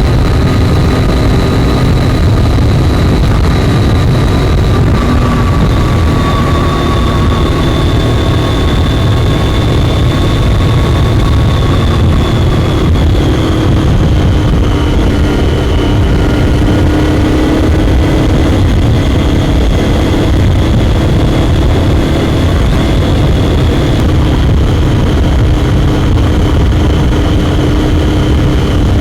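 Triumph Daytona 675's inline-three engine running steadily at cruising speed, over a constant low rumble. The engine note sags slightly in the first half, then holds steady.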